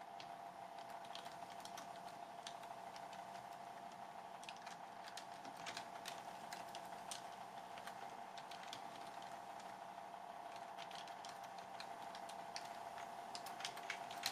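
Typing on a computer keyboard: irregular keystroke clicks, more frequent from about four seconds in, over a faint steady tone.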